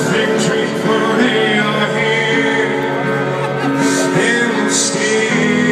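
Live rock band playing a slow song over a festival PA: a male voice singing over steady held chords. Heard from within the audience.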